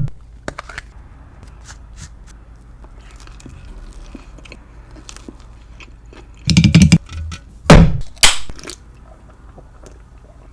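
Close-miked eating of a crispy mahi mahi fish quesadilla: soft chewing and mouth clicks, then several loud crunches of the toasted tortilla between about six and a half and eight and a half seconds in.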